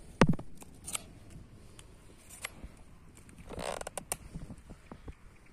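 Handling noises of knife and walnut scion wood during grafting: one sharp knock just after the start, a few light clicks, and a short creaking scrape a little past the middle.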